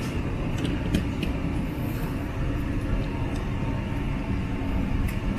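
Steady low rumble of background noise, with a few light clicks and taps as the opened drone is handled and set down on the work mat.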